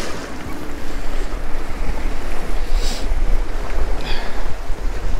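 Wind buffeting the microphone with a steady low rumble, over small waves lapping against a rocky shoreline.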